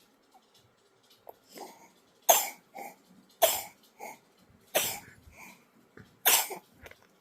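A sick baby coughing: four sharp coughs about a second and a half apart, starting about two seconds in, the first three each followed by a softer, smaller sound.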